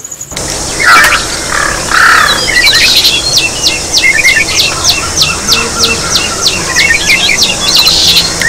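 Birds singing over a steady high insect buzz. Early on there are a few short chirps, then one bird repeats a quick falling note about three times a second.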